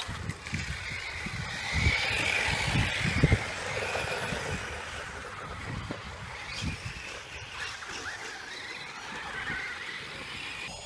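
Radio-controlled off-road trucks driving on a dirt track: the electric motors whine, the pitch rising and falling, with a few low thumps.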